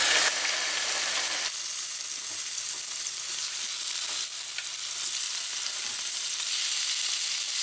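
Raw chicken pieces sizzling as they fry in hot olive oil in a frying pan: a steady hiss that starts the moment the first piece goes in and holds as more pieces are laid in.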